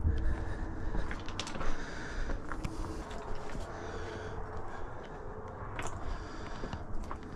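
Footsteps on a dirt and gravel trail, short irregular scuffs and crunches, over a steady low rumble of wind on the microphone.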